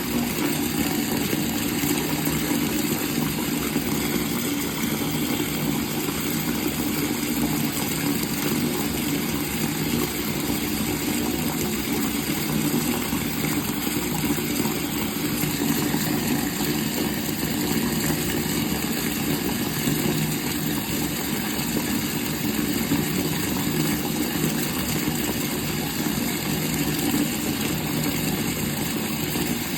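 Water running steadily from a faucet, an even, unbroken rush with no change.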